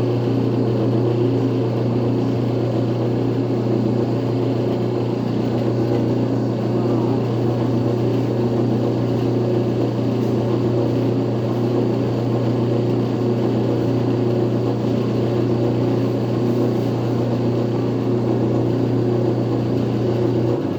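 Electric motor of a chicken machine (frangueira) running with a loud, steady hum under test after repair; it cuts off just before the end.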